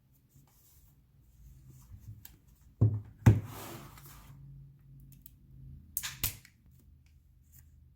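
Small objects being handled on a hard surface: two sharp knocks a little apart, a brief scraping rustle, then two more quick knocks about three seconds later.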